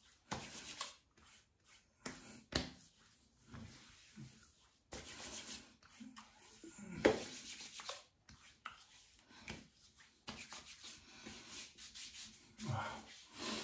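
Hands and fingers rubbing over a freshly shaved face, in soft irregular swishing strokes, one a little louder about seven seconds in.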